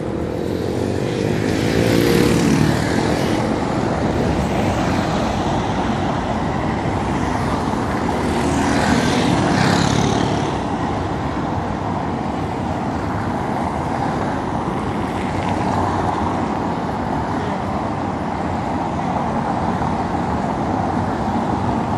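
Steady city road traffic: cars and vans driving past over a cobblestone roadway, with tyre rumble and engines. Nearer vehicles pass more loudly about two seconds in and again around nine to ten seconds in.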